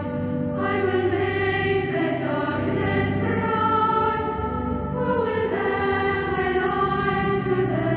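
A choir singing a slow hymn in long held chords that change every second or so.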